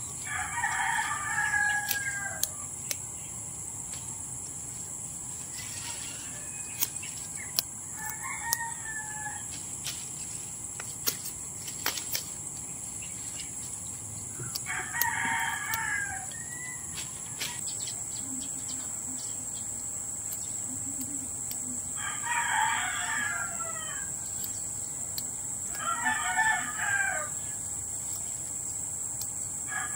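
A rooster crowing about six times, each crow lasting a second or two and coming every several seconds, over a steady high insect drone. A few sharp clicks fall in the first half.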